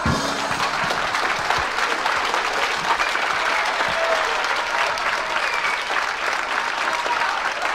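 Live audience applauding steadily, a dense even clapping from a room full of people.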